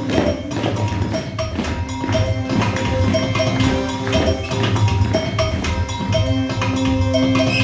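Up-tempo musical-theatre music with a strong, steady percussive beat and bass, accompanying a stage dance number.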